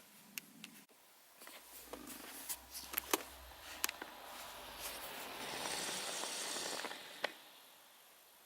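Handling noise: a scatter of light clicks and knocks, with a rustling hiss for about a second and a half near the end.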